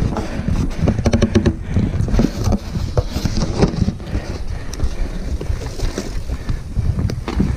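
Mountain bike rolling over a rough forest trail: a steady low rumble from the tyres and frame, full of knocks and rattles, with wind buffeting the bike-mounted camera's microphone.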